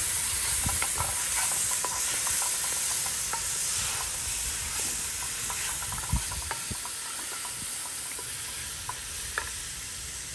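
Chopped onions, bell peppers and minced garlic sizzling in a black cast-iron pot while a wooden spoon stirs them, with scattered small taps and scrapes of the spoon against the pot. The sizzle gets quieter over the second half.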